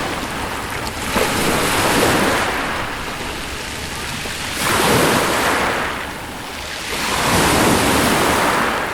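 Sea waves breaking on the shore, three swells of surf about three seconds apart, each washing in and fading.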